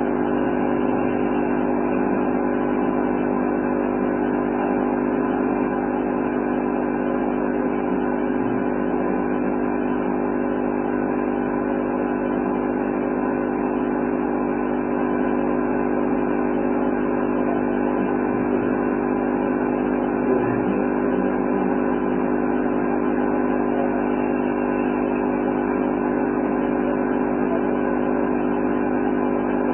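A steady mechanical hum made of several constant low tones, with no change in pitch or level.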